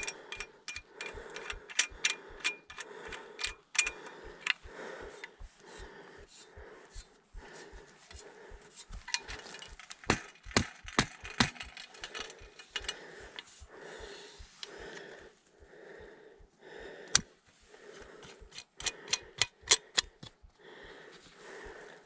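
A person breathing hard in a steady rhythm, with bursts of sharp clicks and rattles from gear and steady low thumps.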